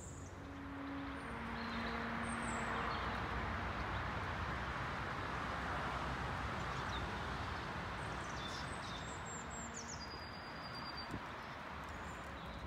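Outdoor ambience: a steady rushing noise that swells through the middle and then eases off, with small birds chirping a few times in the trees.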